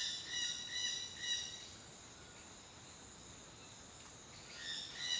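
Rainforest insects keeping up a steady, high-pitched drone. A series of short, evenly repeated calls from another animal comes in over it during the first second and a half and again near the end.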